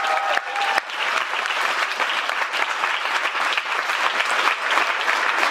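Audience applauding, dense steady clapping from a roomful of people.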